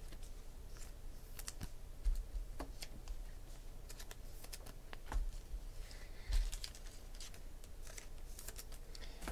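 Light, irregular clicks and taps of trading cards being handled and sorted by hand, a few louder taps about two seconds in and again around five to six seconds.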